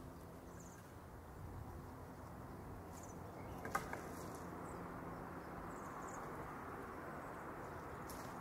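Streetcar running along its track, heard from inside the car: a faint steady low hum under a rushing rumble of wheels on rail that grows a little louder, with one sharp click a little under halfway through.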